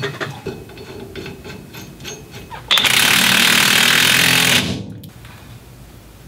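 DeWalt cordless impact wrench hammering for about two seconds, starting a little before halfway in, as it runs a nut down on the truck's rear wheel hub. Faint clicks of handling come before it.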